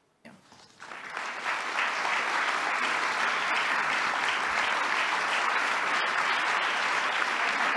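Audience applauding, rising from near silence about a second in and then going on steadily.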